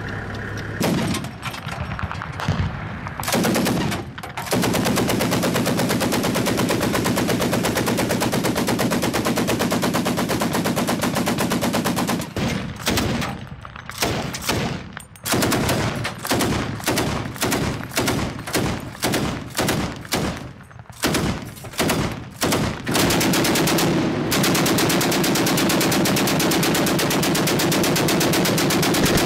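Pickup-mounted heavy machine gun firing. A few shots come first, then long sustained fire, then a string of short bursts, then another long sustained burst near the end.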